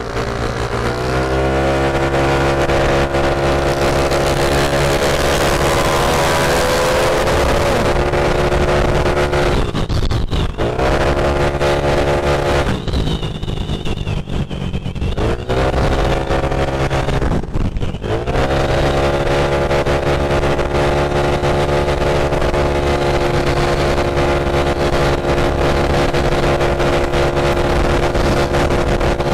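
Yamaha Mio i 125 scooter's single-cylinder engine run hard at high revs: its pitch climbs, then holds steady and high. Three times the throttle is eased briefly and the revs dip and climb again. Wind rushes over the microphone throughout.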